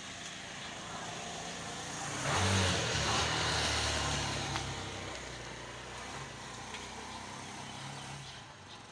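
A motor vehicle passing: a low engine hum with road noise swells about two seconds in, then slowly fades away.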